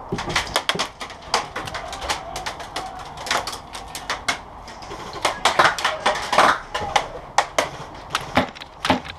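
Airsoft guns firing: many sharp cracks in quick, irregular runs, loudest around the middle.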